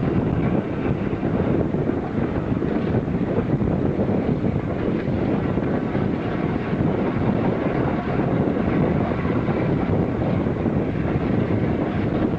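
Wind buffeting the microphone over a steady low rumble, with no clear beat or tone.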